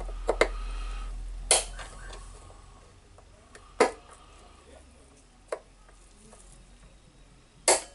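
Sharp metallic clicks and clinks, about six of them at irregular intervals, as pliers work at the metal gear housing of a demolition hammer, the loudest about four seconds in.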